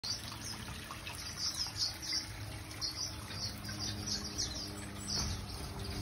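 Small aviary finches chirping: many short, high calls in quick succession, over a steady low hum.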